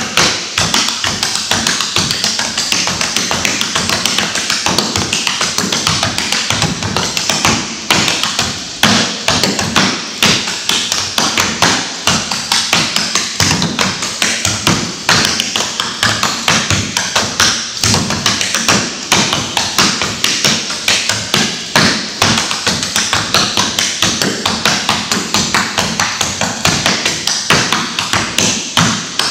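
Clogging shoe taps on a wooden studio floor, danced a cappella as a fast run of double steps and hop touches. The sharp metal taps come several a second without a break, some of them heavier stamps.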